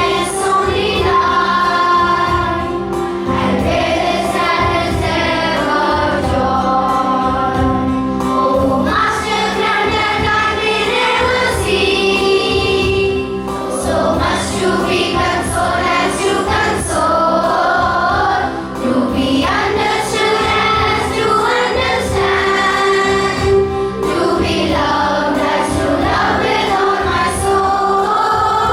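A group of voices sings a prayer song together over steady held accompaniment notes.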